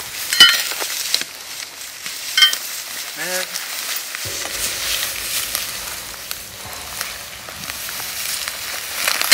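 Dry grass and leaf litter rustling with a steady hiss as a person searches and walks through it, with a couple of sharp clinks, the first about half a second in being the loudest.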